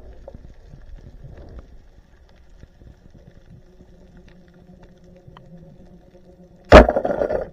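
Underwater ambience with faint crackling, then near the end a single sharp, very loud crack of a speargun firing and the spear striking a fish, followed by a short rattling clatter.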